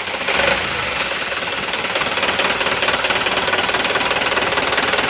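Mitsubishi Canter 136 PS four-cylinder diesel engine running steadily just after starting, with a fast, even diesel clatter. It has been freshly started after an oil change and a new fuel filter.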